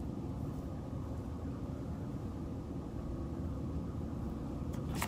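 Steady low background rumble, with a short click near the end.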